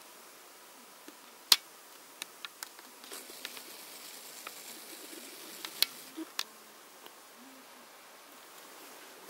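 Faint buzzing of a camcorder zoom motor for about three seconds as the lens zooms in, among several sharp clicks.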